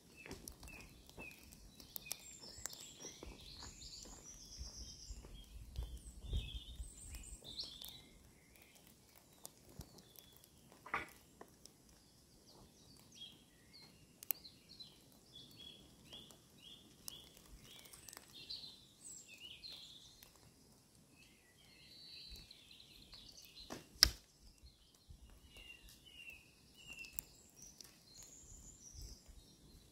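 Small woodland birds chirping and singing, with one sharp thwack about two-thirds through, the loudest sound: a longbow arrow striking the stuffed-bag target.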